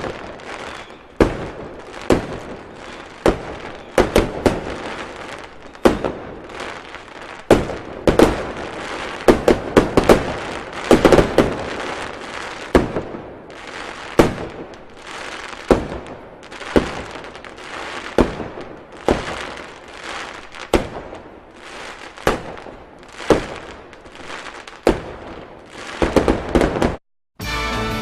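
Fireworks going off: a long run of sharp bangs, roughly one or two a second and sometimes in quick clusters, with crackling between them. It cuts off near the end and music begins.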